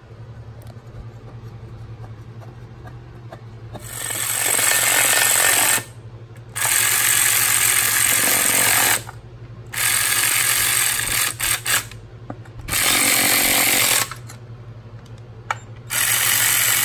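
Cordless impact driver running bolts into an engine oil pan in five bursts, each one to two and a half seconds long, starting about four seconds in; the last is still going at the end.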